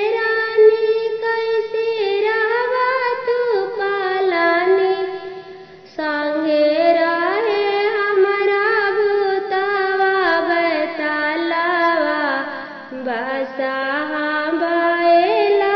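A woman singing a traditional Bhojpuri Teej vrat folk song in long, drawn-out phrases, breaking off briefly about six seconds in before the next line begins.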